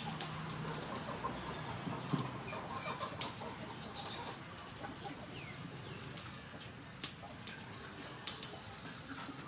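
Small knife peeling a raw potato by hand: short, sharp scraping clicks at irregular intervals as the blade takes off strips of skin.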